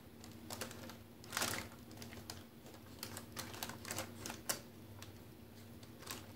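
Hands working a raw whole chicken on baking paper, pushing spiced butter under its skin: irregular soft clicks, taps and paper rustles, the sharpest about a second and a half in and again near four and a half seconds, over a faint steady hum.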